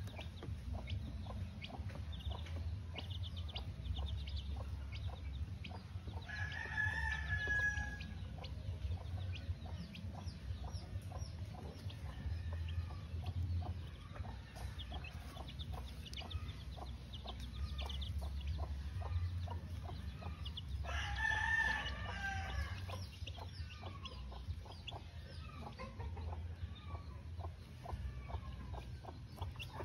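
Backyard gamefowl: a rooster crows twice, about six seconds in and again about twenty-one seconds in, each crow lasting close to two seconds, while a white Kelso hen clucks and her chicks peep in many short calls.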